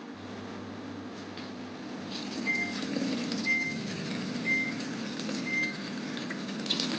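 Samsung washing machine beeping: a short high beep about once a second, starting a couple of seconds in, over a low steady hum and a rushing noise that grows louder.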